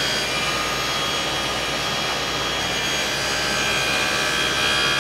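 SawStop cabinet table saw running and ripping a narrow strip of 3/4-inch plywood: a steady, loud blade-and-motor whine with several high steady tones.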